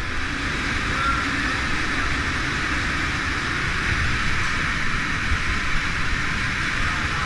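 Steady rush of flowing water in a narrow rock slot canyon.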